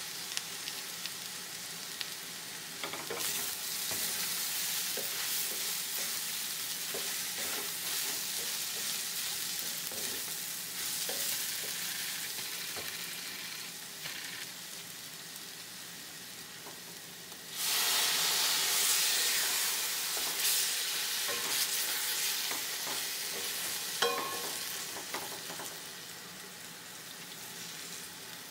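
Urad dal fritter pieces and tomato sizzling in a stainless steel pan while a wooden spatula stirs and scrapes them, with scattered scraping clicks. The sizzling turns suddenly louder about two-thirds of the way through, then slowly dies back down.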